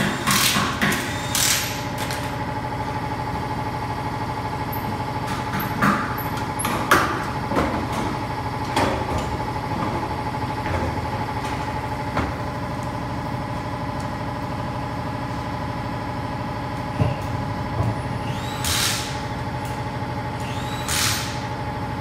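Tire-shop air tools at work: short blasts of a pneumatic wrench and compressed-air hiss, several in quick succession at the start, a few scattered mid-way and two more near the end, over a steady machine hum.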